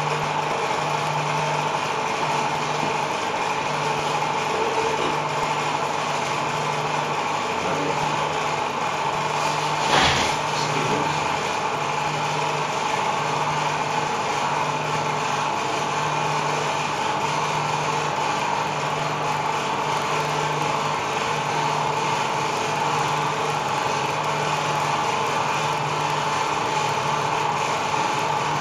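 Microwave oven running with a CO2 cartridge inside: a steady electrical hum with a constant mid-pitched tone and a low hum that pulses in a regular rhythm. A single sharp knock comes about ten seconds in.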